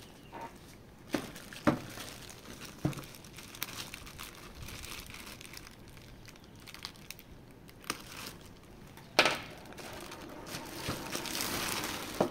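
Figure packaging being handled: plastic and cardboard crinkling, with several sharp knocks, the loudest about nine seconds in, and a stretch of steady crinkling near the end.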